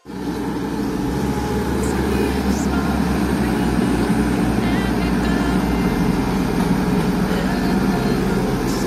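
Sunward mini excavator's diesel engine running steadily.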